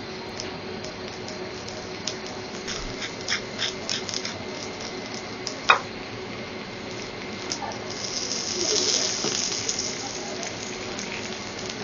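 Vegetables sizzling on a hot teppanyaki steel griddle, a steady hiss with scattered crackles and pops. A single sharp click comes about halfway through, and the sizzle swells into a louder hiss for a couple of seconds near the end.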